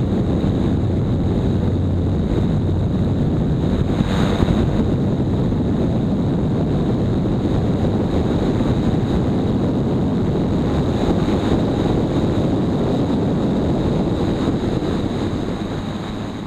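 Streak Shadow microlight's engine and propeller running steadily in flight, heard from on board under heavy wind noise on the microphone. The sound fades away near the end.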